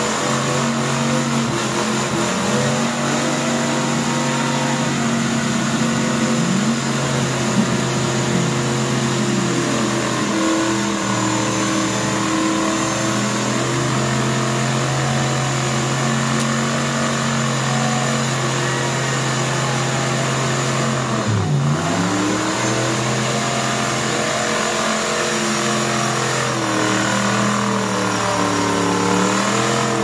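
Modified off-road 4x4's engine revving hard and held at high revs under heavy load as it climbs out of a mud pit, its pitch swinging up and down. About two-thirds of the way through, the revs drop sharply and then climb again.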